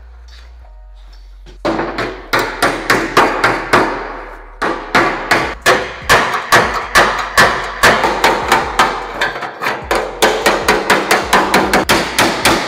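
Hammer blows on the steel sheet metal of a 1940 Willys hood being straightened, about four strikes a second, each with a short ring. They begin about a second and a half in and run on with two brief pauses.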